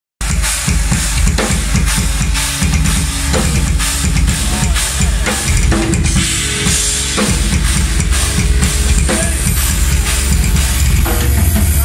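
Heavy rock band playing live: a loud drum kit to the fore, with bass drum and cymbals, over held guitar notes.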